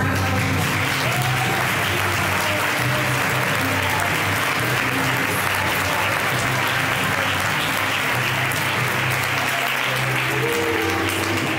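Audience applauding over music, with the music's low bass notes continuing underneath.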